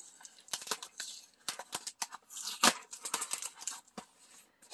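Adhesive sealing tape being peeled off a cardboard mailer envelope, with the cardboard rustling in the hands: irregular clicks and rustles, the loudest a little past halfway.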